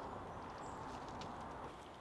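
Faint, irregular soft pats and squelches of hands pressing a wet clay-and-straw daub into a woven wattle wall.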